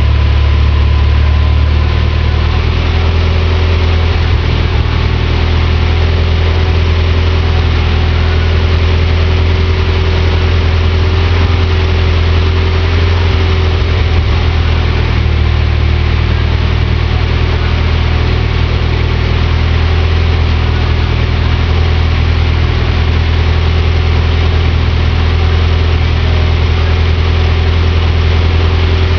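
Car engine idling steadily, a loud, even low hum that hardly changes.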